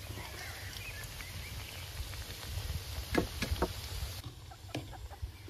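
Filled dough pockets deep-frying in hot oil in a pan: a steady sizzle, with a few sharp pops and crackles about three seconds in.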